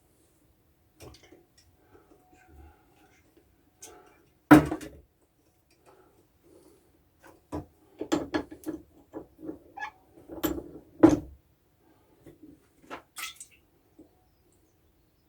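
Irregular knocks and clicks, with one loud knock about four and a half seconds in and a busy cluster from about eight to eleven seconds.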